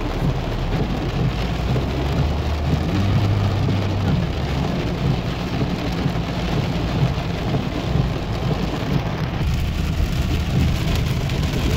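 Heavy rain drumming on a car's roof and windshield, heard from inside the cabin as a steady hiss over a low rumble from the moving car.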